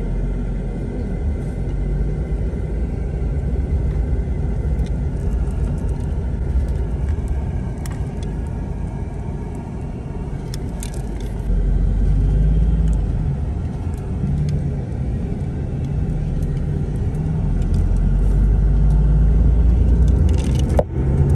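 Airport shuttle driving, its engine and road rumble heard from inside the cabin as a steady deep rumble that swells louder twice, around the middle and again near the end.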